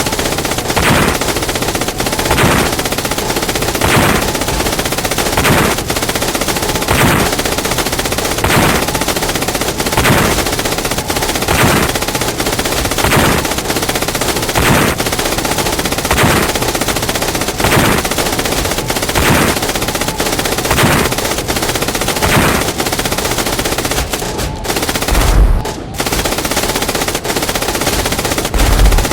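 Sustained battle gunfire sound effects: continuous machine-gun fire with a louder shot about every second and a half. Two deep low booms come near the end.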